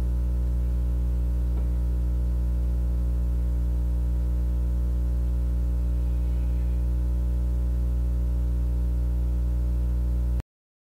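Steady electrical mains hum with a stack of overtones, at an even level, cutting off abruptly to dead silence about ten seconds in.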